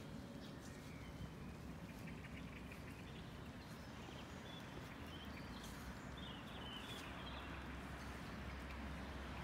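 Faint outdoor rural ambience: a steady low rumble with a few faint bird chirps in the middle.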